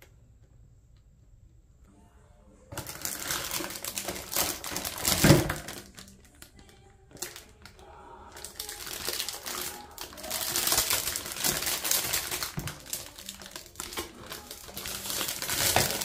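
Unboxing handling noise: crinkling plastic wrap and rustling cardboard as a boxed spray gun is taken out, with scattered clicks and one sharp knock. It starts about three seconds in and pauses briefly about halfway through.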